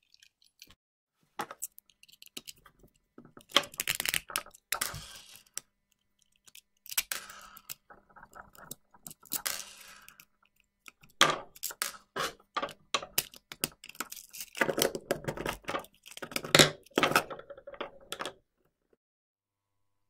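A GFCI outlet being taken apart with a small screwdriver: irregular clicks, scrapes and cracks of metal screws and the plastic housing, in bursts with short pauses, stopping near the end.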